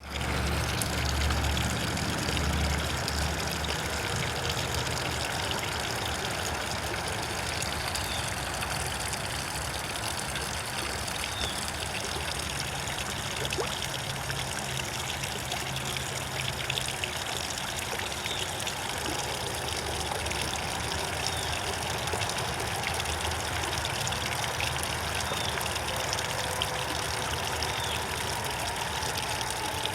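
Water running and trickling steadily, with a low rumble underneath that is strongest in the first few seconds.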